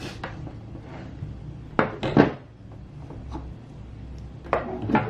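A few short plastic knocks and clacks from handling a poseable anatomy figure, the loudest pair about two seconds in and two more near the end.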